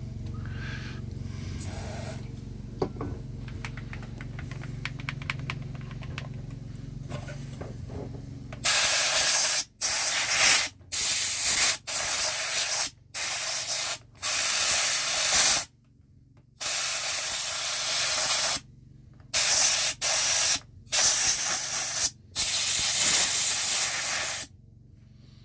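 Aerosol electronics-cleaner spray hissing into a game controller in about ten bursts, starting about eight seconds in. Some bursts are short and some last around two seconds, separated by brief gaps. Before the spraying there is only a low hum and faint clicks of handling.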